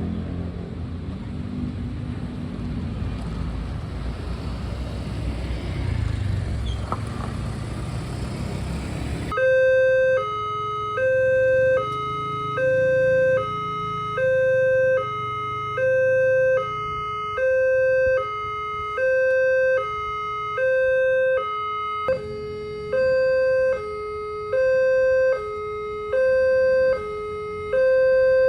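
Road traffic noise, then about nine seconds in a railway level-crossing barrier alarm starts abruptly. It is an electronic siren alternating between a higher and a lower tone, about one high-low cycle every 1.4 seconds, over a low traffic rumble, warning that a train is approaching and the barriers are coming down.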